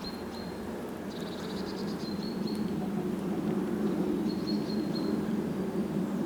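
Small birds chirping in short, rapid high trills, three times, over a steady low background rumble that grows slightly louder partway through.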